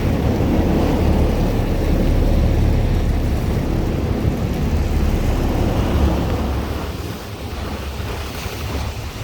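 Wind buffeting the microphone with a low rumble over ocean surf washing on the shore, easing a little about seven seconds in.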